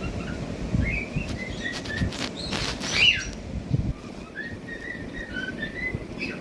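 Cockatiels chirping and whistling in a run of short notes that glide up and down, with a louder sweeping call about three seconds in and a brief noisy rustle just before it.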